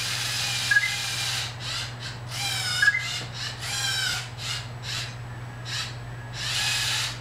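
Lego Mindstorms NXT servo motors whirring in short stop-start bursts as the small robot drives, their pitch wavering up and down with each burst.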